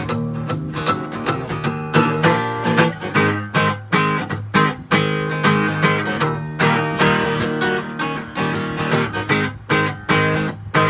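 Acoustic guitar strumming a blues accompaniment between sung verses.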